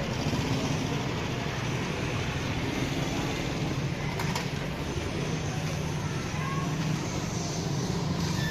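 Steady street noise with the low, even hum of a running engine, and a faint click about four seconds in.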